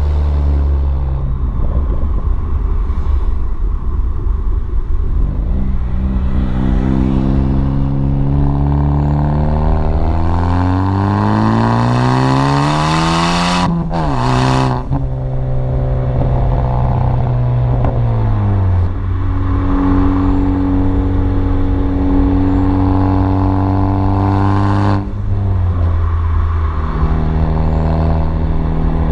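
A 2014 Ford Focus ST's turbocharged 2.0-litre four-cylinder, straight-piped with muffler and resonator deleted, pulls hard with its pitch rising for several seconds. It then drops sharply with a brief hiss from the blow-off valve venting. It runs on at lower revs, with another drop in revs near the end.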